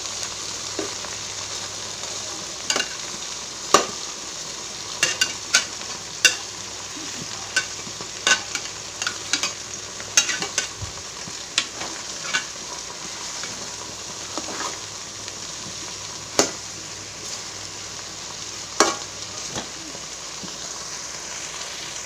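Marinated chicken pieces frying in coconut oil in an uruli, giving a steady sizzle. Frequent short, sharp taps and clicks of a spoon stir and turn the pieces in the pan.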